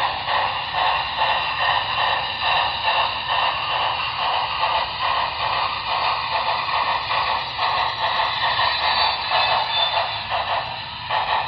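Broadway Limited Imports Big Boy model steam locomotive's onboard sound playing a steady beat of steam chuffs, about two to three a second, over a constant hiss, thin-toned through the model's small speaker. The chuffing stops near the end.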